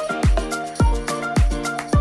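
Background music with a steady beat: a deep thump about every half second under a repeating melody.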